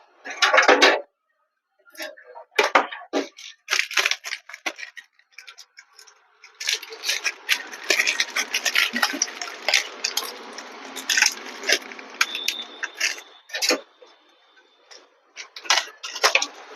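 Hands handling computer cabinet parts: an irregular run of small clicks, taps and rattles.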